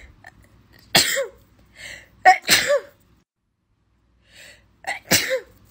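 A woman sneezing over and over, set off by a nasal swab for a Covid test. There is a sharp sneeze about a second in, a quick double about two and a half seconds in, and another near the end.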